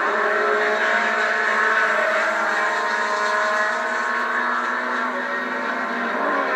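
Several H Production race cars' small engines running hard at steady high revs as the pack goes by. Re-recorded from a TV speaker, so the sound is thin with no bass.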